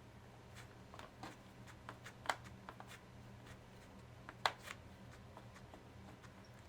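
Scattered small clicks and taps from laptop parts being handled during a memory and hard drive swap, with two sharper clicks about two and four and a half seconds in.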